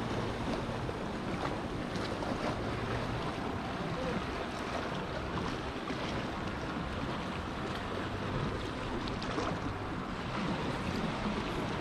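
Small sea waves lapping and splashing against shoreline rocks, a steady wash of water with wind buffeting the microphone.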